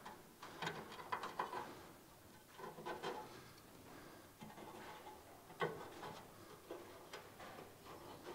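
Faint, scattered light ticks and taps of hand work on the sheet-metal front end of a car body, fitted up for welding.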